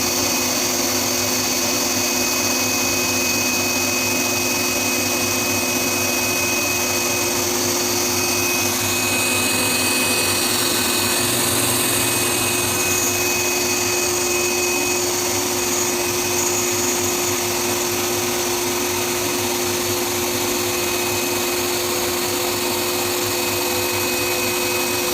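Garment pattern-cutting machine running, a steady fan-like rush with several constant whine tones; the higher part of the sound changes for a few seconds near the middle as the cutting head works.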